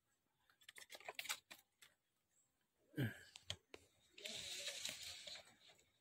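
Light clicks and rustling of cloth in a plastic basket as young civets are handled, a single knock about three seconds in, then a breathy hiss lasting about a second near the end.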